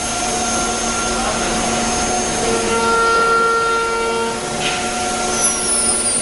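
CNC wood router spindle running and cutting wood: a steady, dense machining noise with several steady whining tones that come and go. Near the end a high whine falls steadily in pitch.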